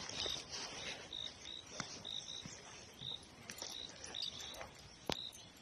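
Short, high chirps of a small animal repeating a few times a second at uneven spacing, with scattered faint clicks.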